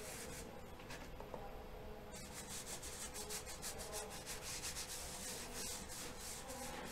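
Cotton makeup pad rubbing charcoal powder into drawing paper in repeated scrubbing strokes, with a short pause from about half a second to two seconds in.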